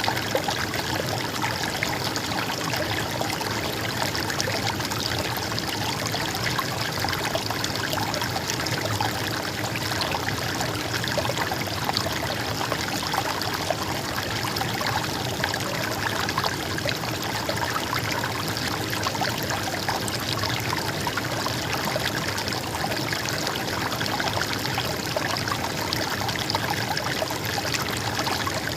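A small river or stream babbling and trickling steadily, an even rush of water with fine splashing detail and no pauses.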